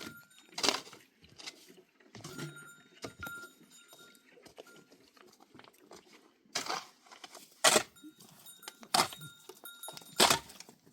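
Sharp metallic clinks and jingles, a few loud ones spread through with fainter ones between, and a faint ringing tone now and then.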